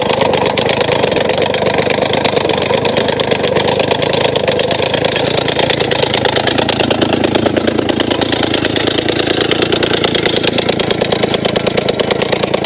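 Engine-driven handheld rock breaker hammering rock: an engine running with a rapid, continuous pounding of the chisel. Very loud.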